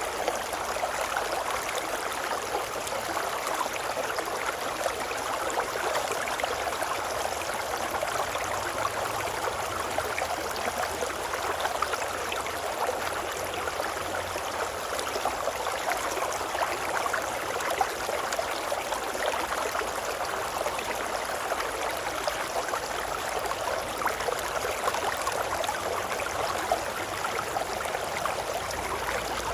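Babbling brook: running water churning steadily and evenly, a continuous rush with a fine splashing flicker and no breaks or changes.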